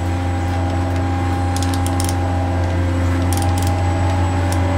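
Small electric motors of a toy RC excavator running with a steady hum and whine as its arm and bucket move, with three short bursts of sharp clicking.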